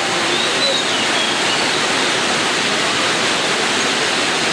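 Dense, steady chatter of many lovebirds calling at once, with a few faint high whistle-like glides about a second in.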